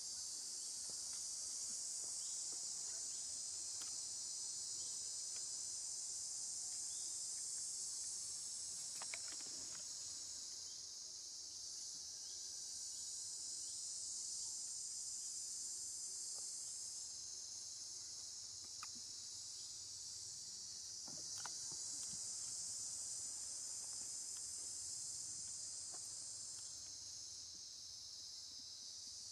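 Insect chorus in the trees: a steady high-pitched drone that swells and eases every few seconds, with a few faint clicks.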